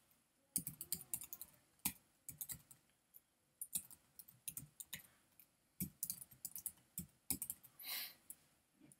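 Typing on an iMac keyboard: quick, irregular runs of soft key clicks as a web address is keyed in.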